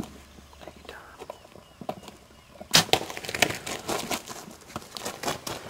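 Bow shot at a wild turkey: about halfway in, a sudden sharp crack as the arrow strikes. Right after it comes a flurry of wing flapping and rustling as the hit bird thrashes.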